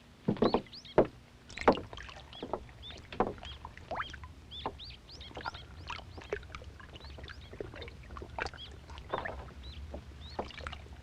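Water splashing and lapping in quick, irregular splashes, loudest in the first two seconds, over a low steady hum.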